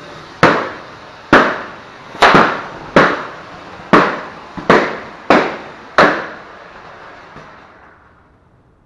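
Red rubber balloons bursting one after another as a tethered toy car, driven by a homemade firework-rocket motor, spins in a circle and its incense sticks hit them: about eight sharp bangs in six seconds, each ringing briefly in a large hall. Behind them is the steady hiss of the rocket motor, which fades out near the end.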